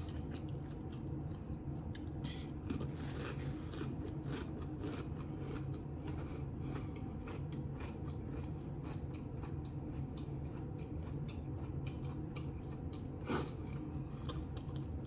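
A person chewing and biting food, with many small crisp crunching clicks and one sharper crunch about 13 seconds in.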